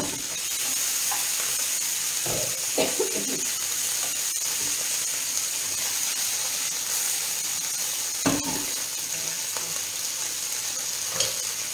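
Oil sizzling steadily in a frying pan of garlic, anchovy and chili soffritto, with a few short knocks of a utensil against the pan.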